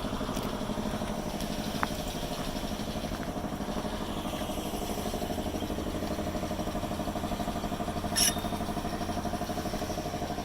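Vehicle engine idling steadily with an even, rapid pulse, and a brief sharp noise a little after eight seconds in.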